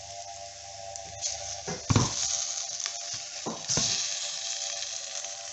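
Flour-dusted lamb shanks sizzling in oil in a frying pan as they brown. Two knocks come about two seconds in and again just past the middle, and the sizzle is louder after the second.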